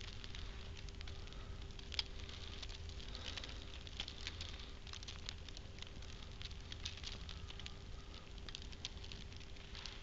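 Footsteps crunching through fresh snow, a faint irregular crackle of short ticks about twice a second, over a low steady rumble.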